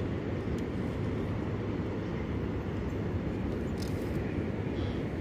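Steady low wind rumble buffeting the microphone, with a faint click or two about four seconds in.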